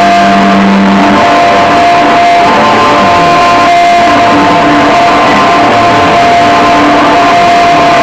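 Loud live rock band playing, with electric guitar. A single high note drones steadily throughout, over low notes that shift every second or so.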